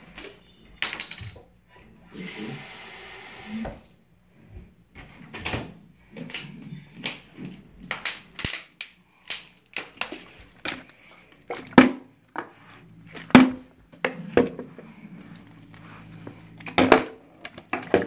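Water running briefly from a tap as a plastic water bottle is filled. After it comes a string of irregular knocks and thuds, the loudest near the end.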